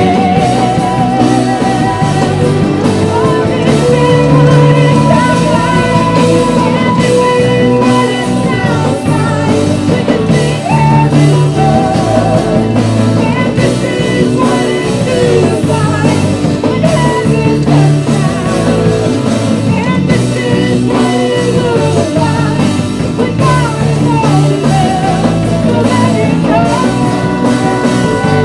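Live contemporary worship song: a woman singing lead into a microphone over a strummed acoustic guitar and keyboard, continuous throughout.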